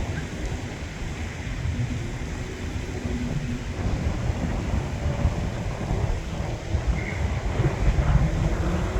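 Wind buffeting the microphone: an uneven, gusting rumble with a lighter hiss above it.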